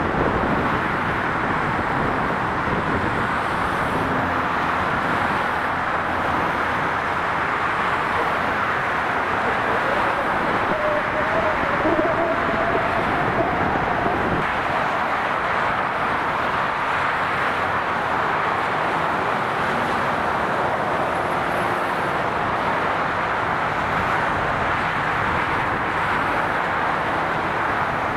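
Steady noise of fast motorway traffic: the tyres and engines of vehicles passing at speed on a dual carriageway.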